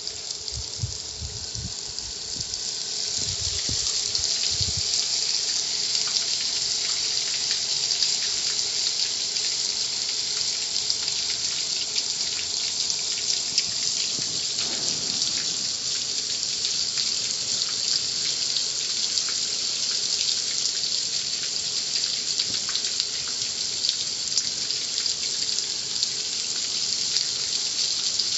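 Steady hiss of water spraying at a car wash, building over the first few seconds and then holding, with a few low bumps near the start.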